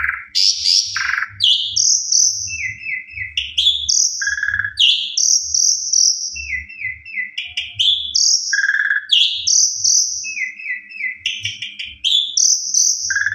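Asian pied starling (jalak suren) singing a loud, varied whistled song. Each phrase is a quick run of four or five short notes followed by long high whistles and a lower fluty note, and the phrase repeats about three times.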